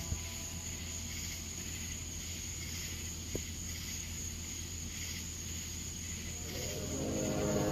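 Night-time outdoor ambience: a steady high insect chirring over a low hum, with a sharp click just after the start and another about three seconds in. Near the end a low, droning, many-toned sound swells in and grows louder: the mysterious sky sound the recording was made to capture.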